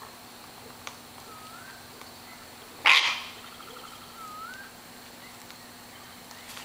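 A single harsh screech of a sulphur-crested cockatoo about three seconds in, short and loud. A softer, repeated gliding bird call sounds faintly in the background.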